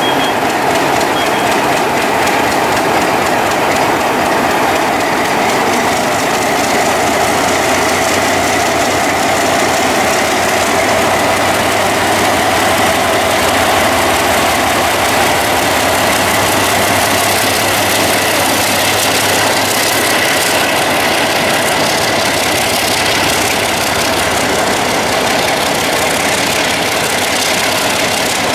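ALCo RSD-16 diesel-electric locomotive's V16 engine working under load as it pulls a freight train slowly past, a steady loud diesel sound with a thin steady whine over it. Near the end, boxcars roll by clattering on the rails.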